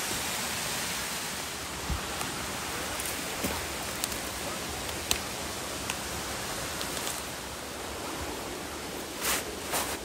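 Steady rushing of a small waterfall, with a few light clicks and knocks, two of them louder near the end.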